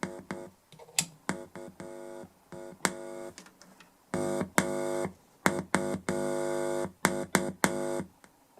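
A steady synthesizer-like test tone played through speakers via the repaired DI box, cutting in and out with sharp clicks and pops, the loudest events. The tone holds one pitch each time it sounds, the longest stretch about four seconds in.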